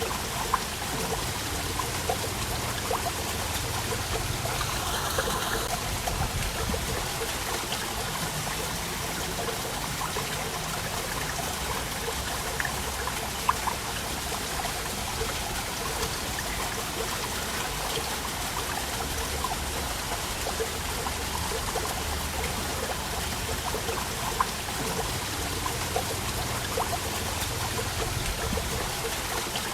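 A waterfall: steady rush of falling water, with scattered small, sharp splashes and drips through it.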